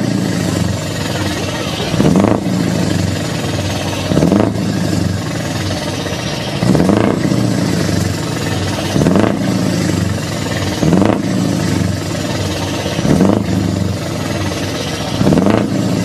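Scania R560's V8 diesel truck engine idling and being blipped through its exhaust, revving up and dropping back in short bursts about every two seconds, seven or eight times. After each rev a high whistle falls away.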